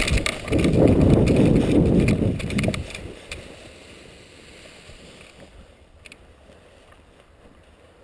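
Paraglider landing: air rushing over the helmet camera's microphone as the pilot comes in low over the grass and touches down. It falls away about three seconds in, leaving faint rustling and a few small clicks.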